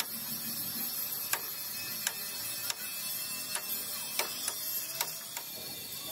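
A series of sharp knocks or taps at irregular intervals, roughly one or two a second, over a steady high hiss.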